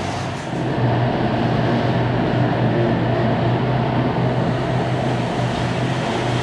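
Steady machine hum with a whooshing hiss, stepping up a little about a second in.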